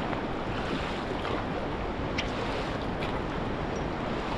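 Steady rushing of white-water river around a raft, with a few faint splashes.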